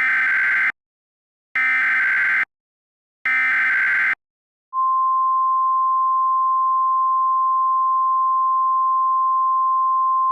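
NOAA Weather Radio emergency alert: three short, harsh, buzzy SAME digital header bursts, then, about four and a half seconds in, the long steady single-pitch warning alarm tone that signals a warning is about to be read.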